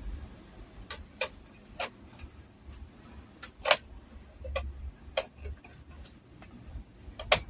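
Irregular sharp clicks and taps as a TV's T-con circuit board is handled, its flat ribbon cables fitted into their connectors and the board pressed down on the sheet-metal back panel; the two loudest clicks come about halfway through and near the end.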